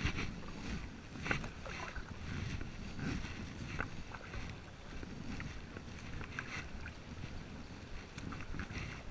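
Kayak paddle strokes: the double-bladed paddle dips into the water on alternate sides, with a short splash about every second, over a low wind rumble on the microphone.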